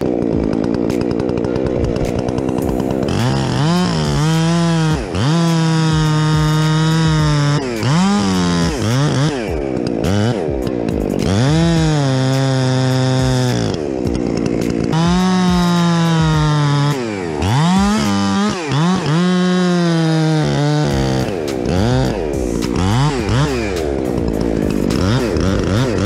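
Chainsaw working on a large tree: the engine is throttled up to a steady high pitch for a few seconds at a time, then falls back and revs up again, about six times over.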